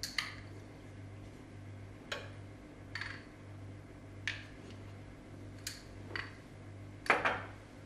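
A teaspoon clinking and scraping against a glass jar as salt is spooned out: scattered light taps about a second apart, with a louder knock near the end as the jar is handled.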